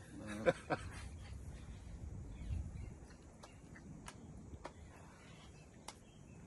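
Quiet outdoor woodland ambience: a low, steady rumble with a few sharp, isolated ticks spaced a second or so apart and faint bird calls, after a brief voice at the very start.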